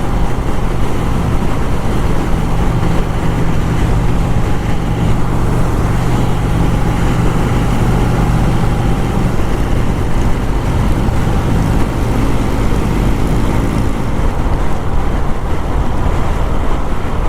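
Motorcycle engine running on the move, with a steady note whose pitch shifts about ten seconds in, over low wind and road rumble.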